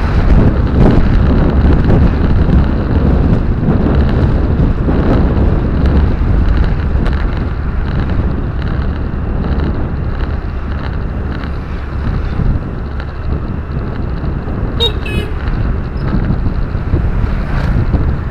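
Car driving steadily, heard from inside the cabin: a constant low rumble of road and wind noise. About fifteen seconds in comes a brief horn toot.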